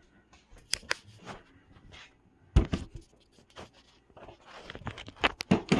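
Scraping and rustling of a handheld phone rubbing and knocking against clothing, with one sharp thump about two and a half seconds in and a cluster of knocks and clatter near the end.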